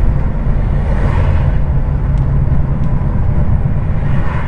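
Heavy diesel truck's engine and road noise on the move, a steady low rumble.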